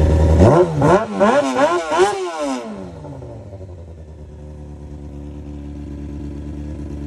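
Honda CBR600 F4i's inline-four engine revved in several quick blips in the first couple of seconds, then dropping back to a steady idle.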